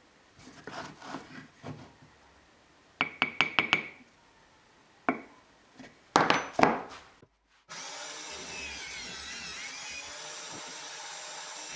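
Woodworking tool sounds on wooden parts: scattered knocks and scraping strokes, a quick run of about six sharp taps a few seconds in, and a couple of longer rasping strokes. After a brief cut, a steady even sound runs to the end.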